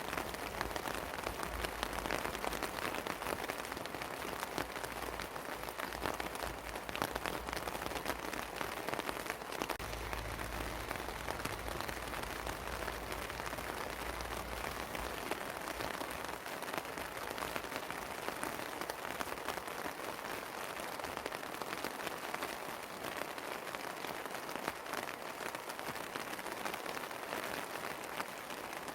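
Steady rain falling on a house terrace, many separate drops striking at once. A low rumble under it dies away about halfway through.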